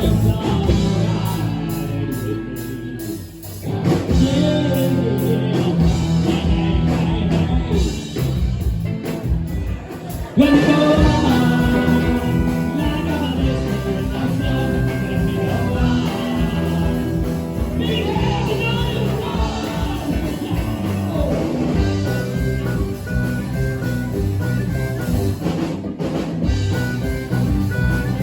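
Rock band playing a bluesy rock song with a singer and guitar. The music drops off briefly about three seconds in and comes back in louder just after ten seconds.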